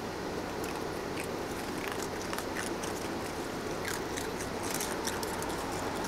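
Baby raccoons chewing and crunching food: many quick, irregular crunching clicks over a steady background hiss.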